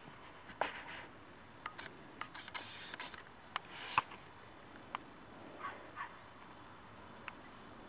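Dogs and puppies playing and scuffling on grass: scattered light clicks and rustles, with a few brief high squeaks.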